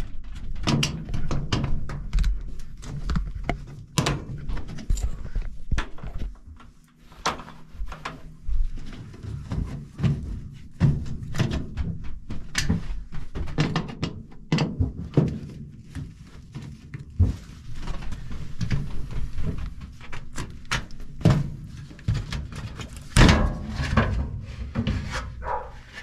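Irregular clunks, knocks and metal rattles as the sheet-metal access panels of a Payne gas furnace are unscrewed and pulled off, with a louder clatter near the end.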